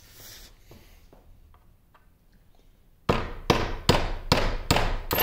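Hammer striking a pin punch in steady, sharp blows, a little over two a second, driving a taper pin out of a 1950 LeBlond Regal lathe's quick change gearbox. The blows start about three seconds in, after a few faint handling clicks, and come about six times.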